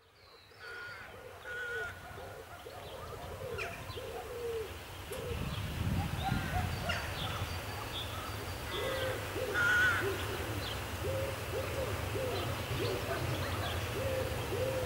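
Birds calling over and over in short, curved notes, with a low diesel engine rumble coming up about five seconds in and growing louder: an SM42 diesel-electric shunting locomotive running as it approaches slowly.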